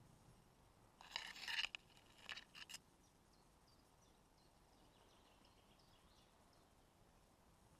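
Near silence broken by two short bursts of rustling and crunching, about a second and two seconds in.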